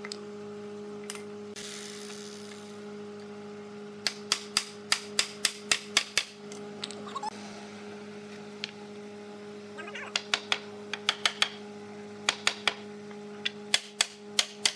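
Runs of sharp knocks, about three or four a second, as the mortise-and-tenon joints of a hardwood table frame are tapped together, coming in several bursts with short pauses between them. A steady low hum runs underneath.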